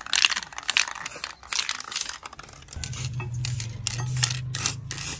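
Aerosol spray can of black acrylic lacquer hissing in short bursts as metal armrest brackets are spray-painted. A low steady hum comes in about halfway through.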